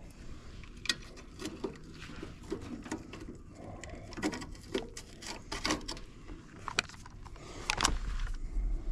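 Irregular small clicks, taps and light knocks of hands handling tools and parts, with a louder scuffing burst and a low rumble near the end.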